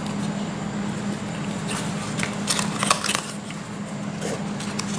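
Paper leaflets and a cardboard box insert being handled: rustling and light scraping of paper and card, with a few sharper crackles around the middle.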